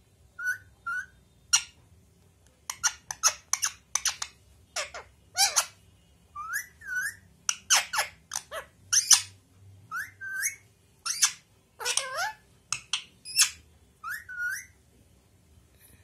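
Rose-ringed parakeet giving a rapid run of short, sharp, shrill calls, some with a whistled rise and fall in pitch. The calls stop about a second before the end.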